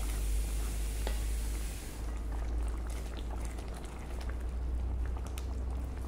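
Thick curry simmering and bubbling in a stainless steel kadai as it is stirred with a wooden spatula, with scattered soft pops and small ticks over a steady low hum.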